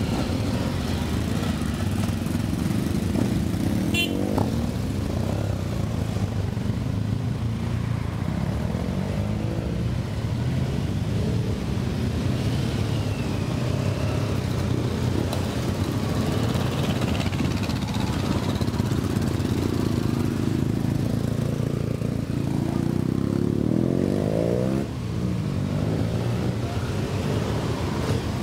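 A string of Yamaha XTZ Ténéré dual-sport motorcycles riding past one after another at low speed. The engines run on without a break, rising and falling in pitch as each bike pulls away, with a clear rising rev about 24 s in.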